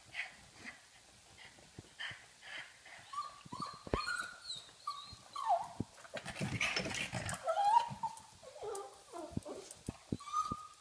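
Pug whining in many short, high-pitched whines that bend up and down, a dog's plea to play, with a rough burst of noise from about six to seven and a half seconds in.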